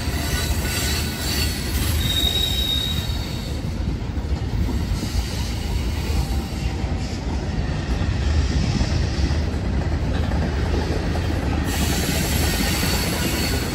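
Freight cars rolling past at steady speed: a continuous rumble of wheels on rail, with a thin high wheel squeal that is strongest about two seconds in.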